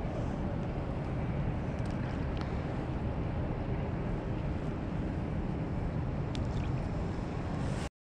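Wind buffeting an outdoor camera microphone, a steady low rumbling rush with a few faint clicks, cutting off abruptly just before the end.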